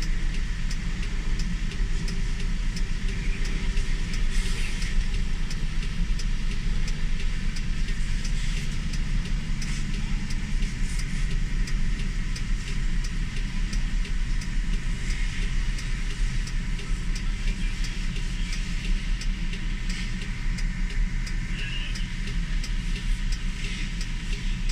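Heavy truck engine idling steadily, a low, even rumble.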